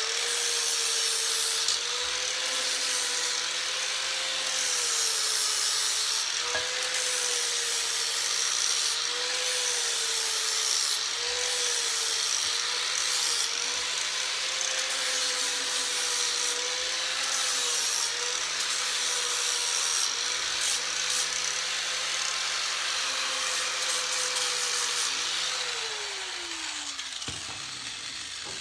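A power grinding tool cleaning up the notched edge of a steel roll-cage tube: a steady abrasive hiss over a motor whine that wavers as the pressure on the work changes. About 26 s in, the motor is switched off and winds down with falling pitch.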